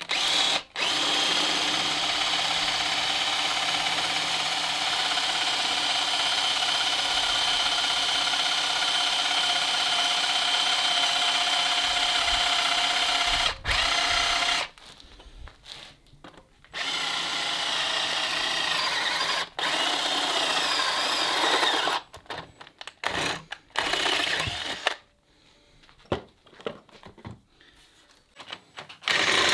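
Electric drill boring into a forged mild-steel bar: it runs steadily for about fourteen seconds, stops, and runs again for several seconds. Near the end it comes in short bursts, then stops.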